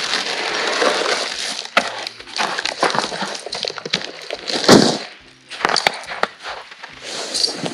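Steel snow chains clinking and rattling as they are picked up and carried, over rustling and footsteps on packed snow, with one loud clatter about five seconds in.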